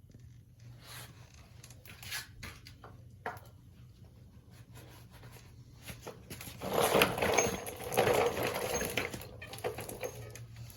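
Metal truck parts being handled on a bench: scattered clicks and light knocks, then about three seconds of louder scraping and rattling starting about six and a half seconds in, as a sheet-metal dust shield is fitted to a steering knuckle.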